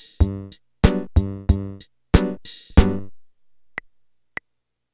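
Casio Casiotone MT-88 home keyboard auto-playing a ROM-pack song: drum-machine beats with chords and bass, which stop about three seconds in. Then two short high beeps follow, about half a second apart.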